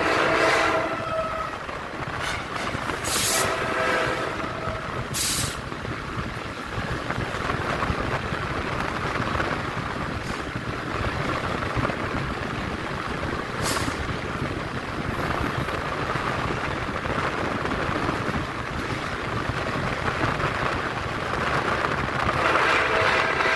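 Train running along the track, heard from the front cab: a steady rumble of wheels on rail with a couple of sharp clacks. The horn sounds briefly at the start, again about three seconds in, and for about two seconds near the end.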